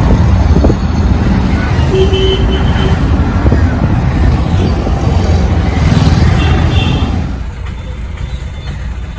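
Loud, steady low rumble of a moving vehicle, with a short horn toot about two seconds in; the rumble drops to a quieter level after about seven seconds.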